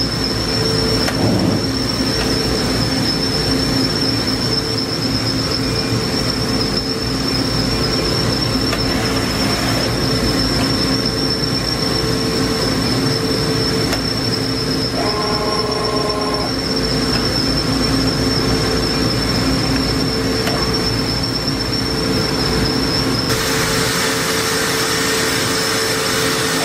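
Okuma MILLAC 800VH 5-axis machining center running: a steady mechanical hum with a constant high whine. A brief tone sounds for over a second about halfway through, and a louder hiss sets in near the end.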